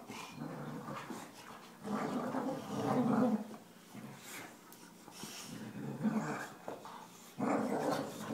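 Two boxer dogs growling in play as they wrestle and mouth at each other, in rough bursts, the loudest about two to three seconds in and again near the end.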